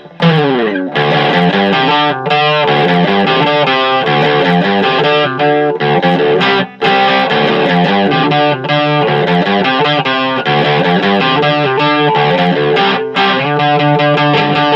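Electric guitar played with distortion through a Joyo DC30, a riff of chords and single notes. It opens with a downward slide and rings out on a held chord near the end.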